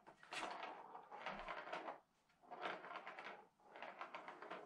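A plastic ball rattling as it rolls along the plastic channel of a Catit Senses Super Roller Circuit cat track, batted by a cat's paw: three runs of about a second each, with short pauses between.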